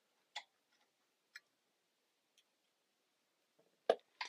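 A few light clicks about a second apart, then two louder knocks near the end, from the metal motor-mount bracket and parts of a treadmill drive motor being handled.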